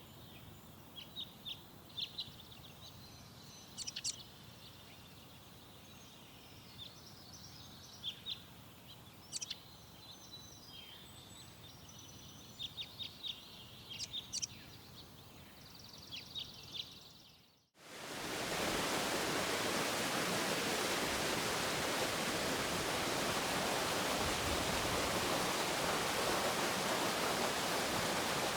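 Wild birds chirping and calling in short, scattered high notes over a quiet background. About two-thirds of the way through, this cuts off abruptly to a loud, steady rush of water.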